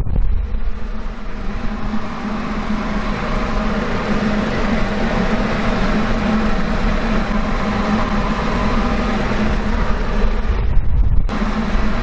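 Blower of a wind-simulator booth running hard, a steady rush of wind buffeting the microphone over a low fan hum, like a giant hair dryer. The rush cuts off about a second before the end, leaving the hum.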